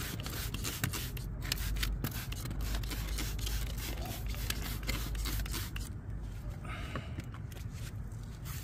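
Trigger spray bottle of degreaser pumped again and again onto a motorcycle's exhaust header pipe: a quick, irregular run of short spritzes for the first several seconds, thinning out near the end.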